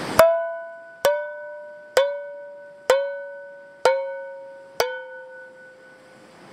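Metal frying pan struck six times, about once a second, each strike ringing out and fading before the next. It is banged as a metallic noise to scare off bears and other wild animals.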